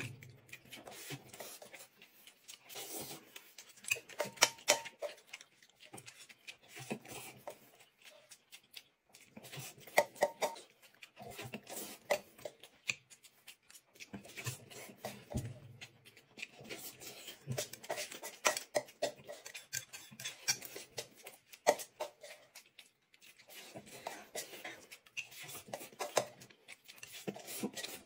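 A person eating close to the microphone: wet chewing and smacking with many irregular sharp clicks and crackles.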